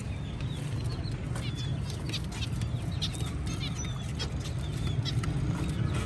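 Small cage birds chirping: many quick, high, thin chirps overlapping, over a steady low rumble.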